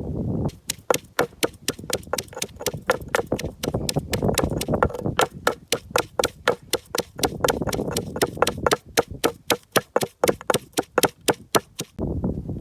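A knife chopping fast and evenly on a cutting board, about five strokes a second, stopping shortly before the end.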